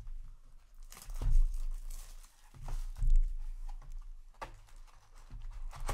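Cellophane shrink wrap crinkling as it is handled just after being stripped off a cardboard booster display box, with a few soft bumps and knocks of the box being set down and turned.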